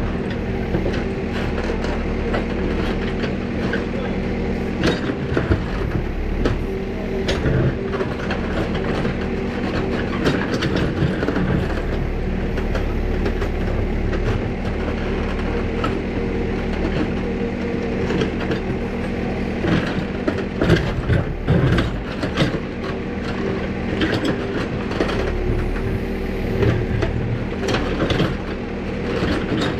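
Backhoe loader's engine running steadily while the backhoe arm digs, with scattered clanks and knocks from the bucket and arm.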